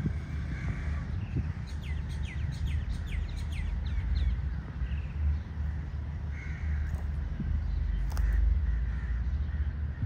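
Birds calling in the open: a quick run of about eight falling whistled notes between two and four seconds in, with harsher cawing calls near the start and again in the second half. A steady low rumble runs beneath.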